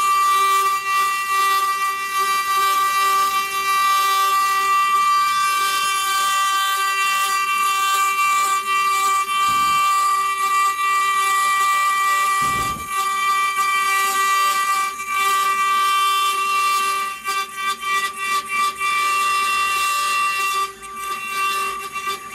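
CNC router spindle running with a steady high whine while its bit engraves stone on a rotary axis, with a hiss of cutting. In the last few seconds the sound breaks into short dips.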